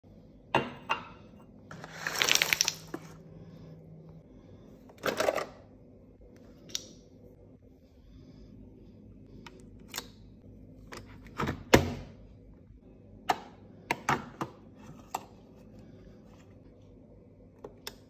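Hands working a Nespresso capsule coffee machine: a series of sharp plastic clicks and knocks as its lever head and capsule slot are opened and shut, with a couple of short bursts of rustling near the start.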